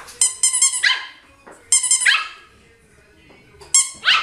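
A squeaky toy ball squeezed three times, each squeak answered at once by a small puppy's high-pitched yap.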